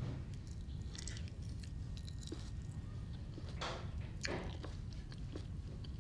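A person eating grated raw carrot with a fork: a few short crunches of chewing, about a second in and twice more past the middle, over a steady low hum.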